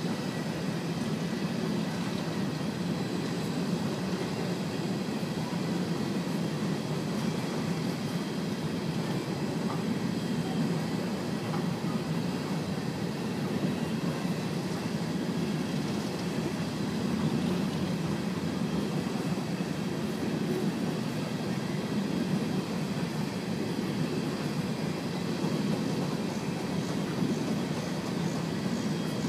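Empty coal cars of a BNSF freight train rolling past: a steady rumble of steel wheels on rail that holds evenly throughout.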